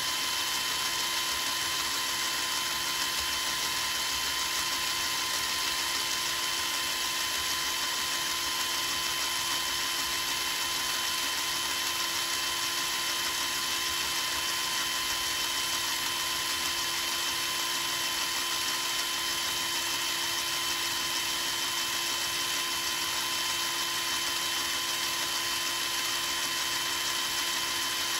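Black and Decker 8V cordless drill running at one steady speed with an even motor whine, turning a copper core wire so that fine copper wire winds onto it as a coil.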